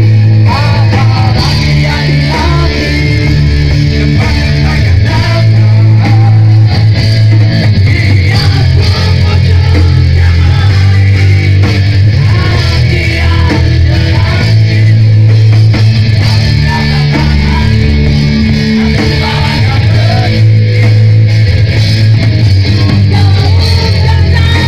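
Loud live rock band playing: electric guitar, bass and drums, with a male singer on a microphone.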